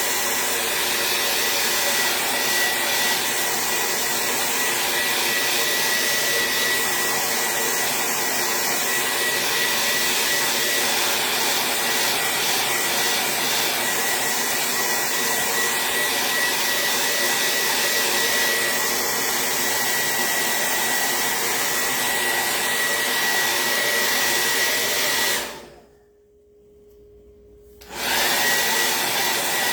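Hair dryer blowing steadily with a high whine, drying a fresh coat of Mod Podge sealer. It switches off about 25 seconds in and comes back on about two seconds later.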